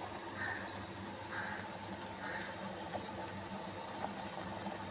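Drumstick-leaf soup boiling steadily in an open aluminium pressure-cooker pot. A few light clicks of a steel ladle against metal come in the first second.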